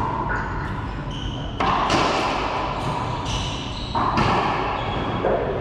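Racquetball rally: the ball smacking off racquets and the court walls, each hit ringing in the hard, enclosed court, the loudest about one and a half and four seconds in. Short high squeaks of sneakers on the hardwood floor come between the hits.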